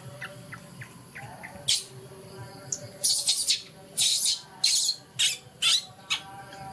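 Baby monkey screeching in a run of short, shrill cries, about six of them, most in the second half.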